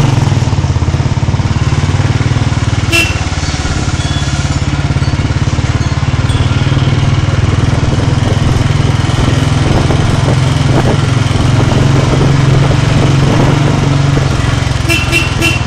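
Motorcycle engine running steadily while the bike is ridden at low speed, heard from the rider's seat. A few short high beeps sound near the end.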